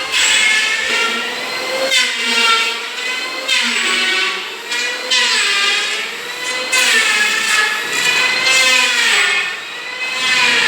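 Electric power tool motor whining, its pitch dipping and rising again and again as the load on it changes.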